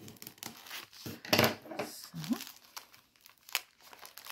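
A clear plastic packaging bag of papercraft supplies crinkling as it is handled and cut open with scissors, in irregular rustles with the loudest about a second and a half in.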